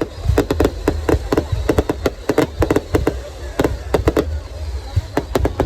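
Fireworks display: a rapid, irregular string of sharp bangs from bursting shells, several a second, over a continuous low rumble.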